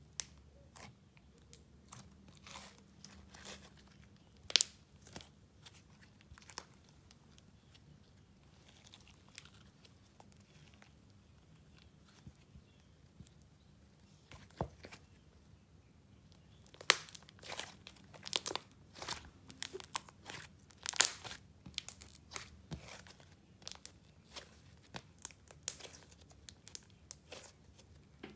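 Layered pink icing and clear slime being poked, folded and stretched by hand, making irregular sticky clicks and crackles. The clicks come thickest a little past halfway.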